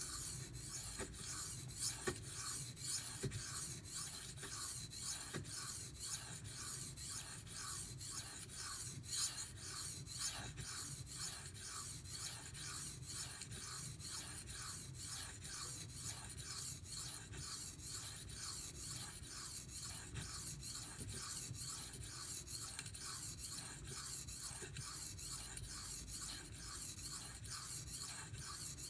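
Knife blade edge stroked back and forth on a Venev 2000-grit bonded diamond stone: an even rhythm of short scratching strokes, about two to three a second. The scratch is the audible feedback of the edge on the slick, glazed stone.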